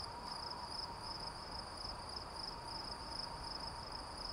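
Insects chirring steadily, a high pulsing trill like crickets, over a faint hiss.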